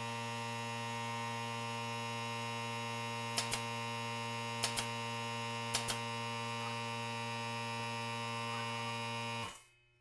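Steady electrical mains hum, with three faint double clicks about a second apart in the middle; the hum cuts off suddenly near the end.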